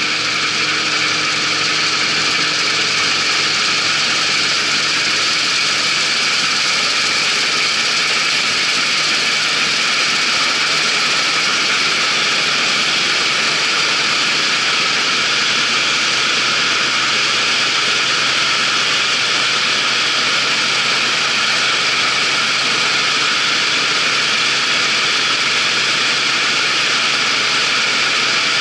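Claas Dominator 88 combine harvester running steadily: a constant engine drone under a loud, even hiss.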